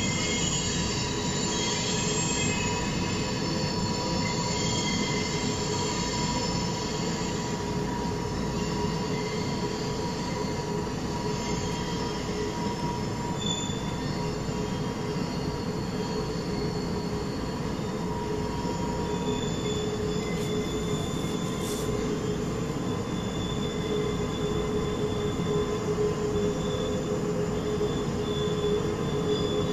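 Wheels of a Norfolk Southern maintenance-of-way camp train's cars rolling past on a sharp curve: a steady rumble with sustained shrill flange squeal from the wheels grinding the rail in the curve. The squeal holds several steady tones, which shift about two-thirds of the way through, and the train grows a little louder near the end.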